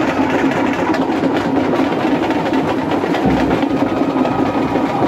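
Loud, steady din of a packed crowd, with a fast clatter running through it.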